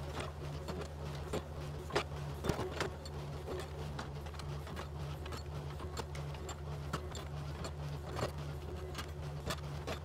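Yanmar mini excavator's diesel engine running steadily as it digs. Frequent sharp clicks and knocks come from the bucket working through rocky dirt.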